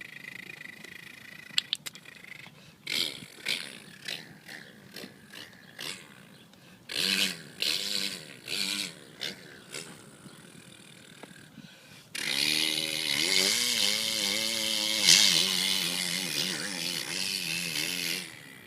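A man imitating supercross dirt bikes with his mouth. First come scattered short blips and revs of bikes lined up at the starting gate, then from about twelve seconds in a long, wavering engine drone that lasts about six seconds.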